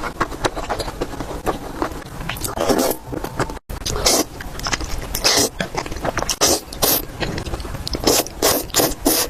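Close-miked eating sounds: wet chewing of spicy noodles and dumplings in many short, irregular bursts, with a brief total cutout about three and a half seconds in.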